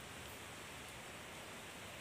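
Faint steady hiss of outdoor background noise, with no distinct sounds standing out.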